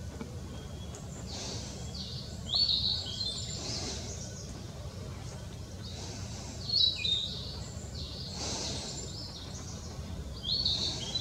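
A songbird singing short, high chirping phrases three times, about four seconds apart, over a steady low background rumble.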